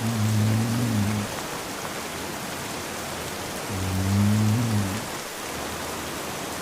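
A man snoring: two low, droning snores, each a little over a second long and about four seconds apart, louder than the steady rain falling throughout.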